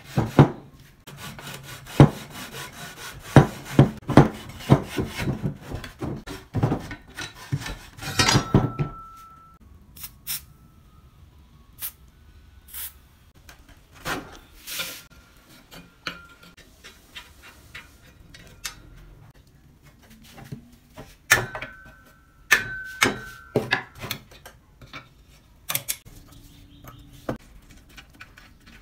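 Open-end wrench working the rusty bolts that hold a drill press column to its base. There is dense clicking and scraping for the first several seconds, then scattered metal clinks, some ringing briefly.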